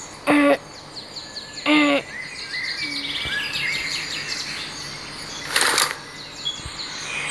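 Birds chirping and twittering in a video game's outdoor ambience, many quick high chirps through the middle. Two short, loud pitched calls come early, and a brief hiss-like burst comes near the end.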